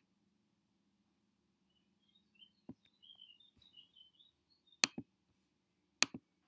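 Two sharp computer mouse clicks, about a second apart in the second half, as a list item is selected and a Next button pressed. Faint high chirps come through in the quiet stretch before them.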